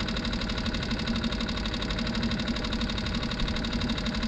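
Small outboard motor on a skiff idling steadily, with a fast, even running rhythm.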